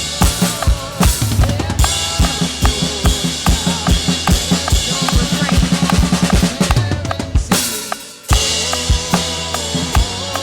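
Drum kit playing a steady beat over a full worship band track. A little past the middle, the hits quicken into a building fill, the music drops out for a moment, then the kit comes back in with a loud hit.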